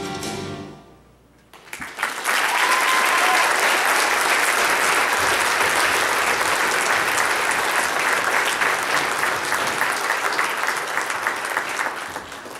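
A children's choir's last sung note fades away, and after a short pause an audience breaks into applause about two seconds in. The clapping stays steady and dense, then begins to die away near the end.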